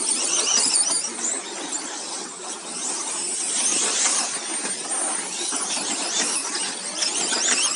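Several radio-controlled racing trucks driving around a carpet track, their small motors giving a high-pitched whine that rises and falls as they speed up and slow through the corners.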